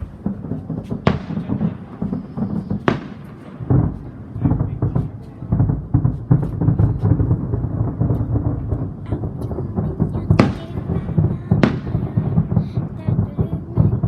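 Fireworks going off: a dense run of crackling and rumbling bursts, with sharp, loud bangs about a second in, near three seconds, and twice more close together near the end.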